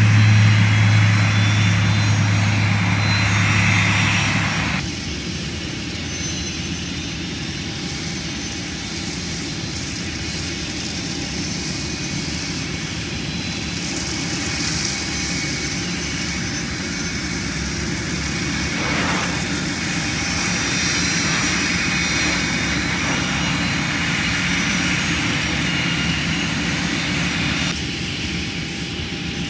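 Twin-turboprop airplane with its propellers giving a loud, steady low drone, which cuts off abruptly about five seconds in. Then jet engines of a business jet on landing approach: a steady distant rumble with a faint whine, growing a little louder.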